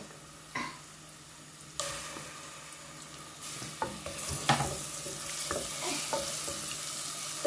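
Onions and garlic-ginger paste frying in oil in a metal saucepan: a sizzle that sets in about two seconds in and grows louder. A wooden spoon stirs and knocks against the pan.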